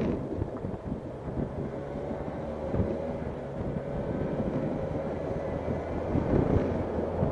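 Motorcycle engine running as the bike slowly picks up speed, its pitch rising a little, with wind rumble on the microphone and a few short thumps.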